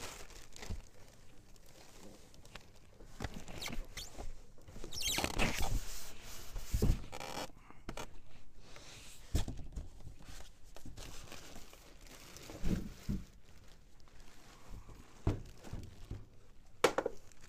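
Unpacking noises: a cardboard box scraping and being tipped, plastic packing bag rustling, and several dull knocks as a bagged sewing machine and its foam packing are lifted out and set on a table.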